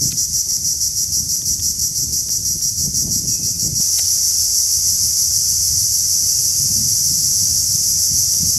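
Loud, shrill insect chorus that pulses rapidly at first, then settles into a steady drone a little under four seconds in, over a low rumble.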